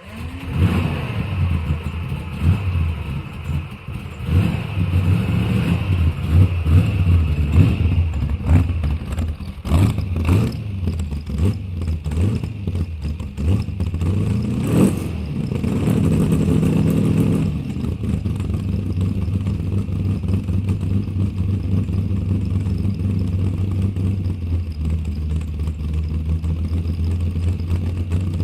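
A car engine's exhaust revving in short, repeated blips, with one longer rise in revs about halfway through, then settling to a steady idle for the last ten seconds or so.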